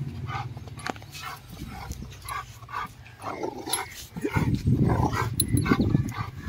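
A dog giving a run of short, quick yips and whines, about two to three a second. From about four seconds in, a loud low rumble joins them.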